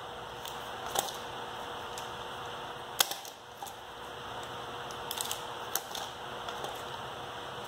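Umarex Colt SAA CO2 .177 BB revolver fired three times, each a sharp pop, the loudest about three seconds in, with fainter clicks in between.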